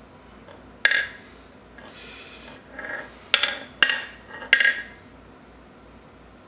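Plastic squeeze bottle of oil being squeezed over the crankshaft pins and bearings. It gives four short, sharp sputters of oil and air from the nozzle, with a softer hiss between them.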